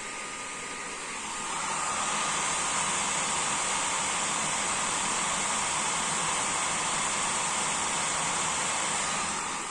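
Blower-style fan of an Asus RTX 2060 Turbo graphics card, set to 95% speed, running as a steady rushing hiss. It swells louder about a second and a half in, holds, then drops back near the end.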